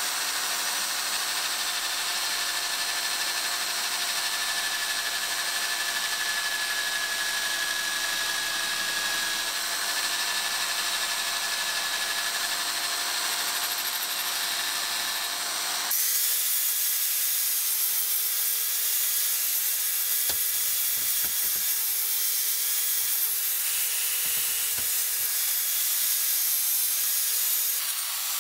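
A wire wheel brush spinning in a drill press scrubs a cast aluminium drill housing with a steady hiss. About halfway through it switches abruptly to an angle grinder with an abrasive disc, grinding the housing with a louder, brighter hiss over a steady motor whine.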